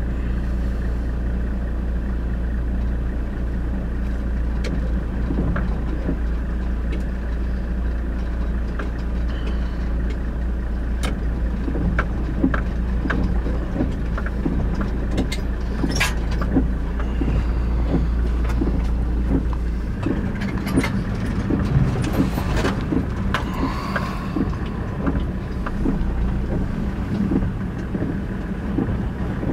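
Car engine running at low speed as the vehicle reverses slowly, a steady low drone that shifts about two-thirds of the way in, with scattered small clicks and ticks.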